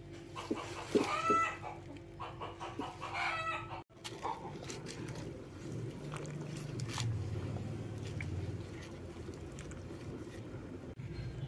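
A chicken calls twice in the first few seconds. After a cut, low rumbling noise with scattered light clicks as leaves are worked with a plastic fork in a metal pot of water.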